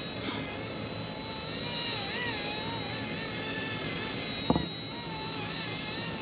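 ERA C159 remote-control helicopter in flight, its rotor motors whining with a pitch that wavers up and down as it runs an automatic turning manoeuvre. A single sharp click sounds about four and a half seconds in.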